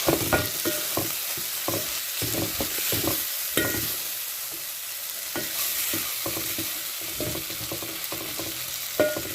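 Matumbo (tripe) with onions, tomatoes and capsicum sizzling in a pan while it is stirred, the utensil knocking and scraping against the pan many times, with a few ringing clinks.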